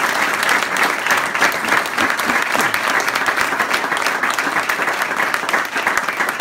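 Audience applauding steadily, a dense patter of many hands clapping, with some claps close by.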